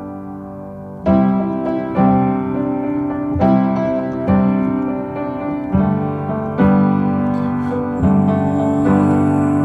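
Instrumental break in a song: piano or electric piano playing sustained chords, a new chord struck roughly every second.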